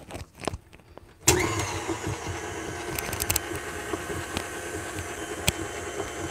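Electric stand mixer switched on about a second in: its motor whines up to speed and then runs steadily, the beater mixing cake batter in a glass bowl. A few sharp clicks sound over the running motor.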